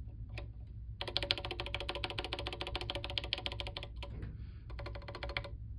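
Stock Gateron Yellow linear keyboard switch (milky top, black bottom) under a tall SA keycap, pressed rapidly over and over in two runs of quick clicks. A steady ringing tone sounds under the clicks.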